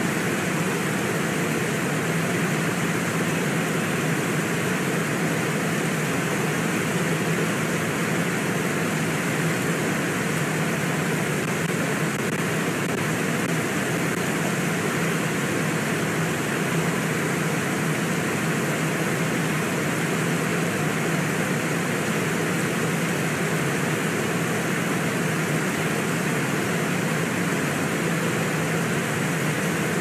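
Steady rush of fast-flowing river water, an even, unbroken noise.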